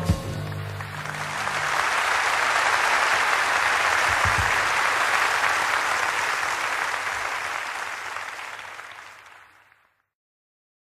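Concert-hall audience applauding at the end of a live jazz performance: the last low notes ring out under a single knock at the start, then the clapping swells within a couple of seconds, holds steady, and fades out to silence about ten seconds in.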